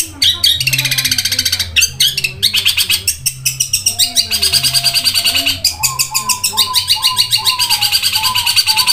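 Long-tailed shrike (cendet) singing a fast, continuous chattering song of rapidly repeated high chirps and trills, with a run of lower warbled notes in the second half.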